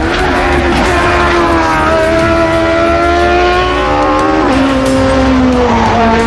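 Racing car engines at full song on a hillclimb. The engine note holds and slowly climbs, then drops suddenly about four and a half seconds in.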